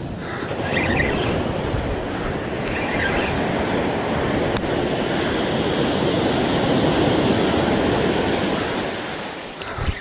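Ocean surf breaking and washing up the shore, a steady rush that swells midway and eases off near the end, with a brief bump just before the end.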